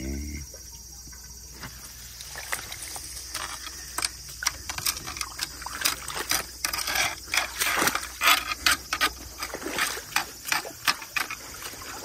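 Dip net being swept and scooped through shallow water in a concrete ditch: repeated splashing and scraping through water, mud and debris. It starts about a second and a half in and gets busier and louder from about four seconds in.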